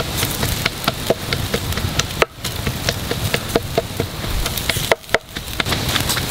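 Whole ducks roasting over glowing charcoal, sizzling and crackling: a steady hiss scattered with many sharp pops and ticks, dipping briefly twice.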